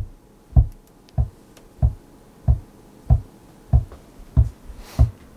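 Homemade suitcase kick drum, a wooden case fitted with a 12-inch pandeiro's leather head and struck by an inverted bass-drum pedal, played as a steady beat of about one and a half thuds a second. It is heard through an AKG D112 placed just off the case's rear port.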